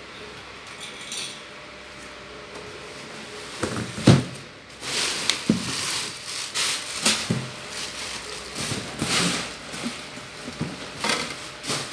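Knocks and clatters of hard plastic wall-fan parts being handled on a tiled floor, with rustling of plastic packaging. It starts quiet and turns busy about four seconds in, with the loudest knock just after that.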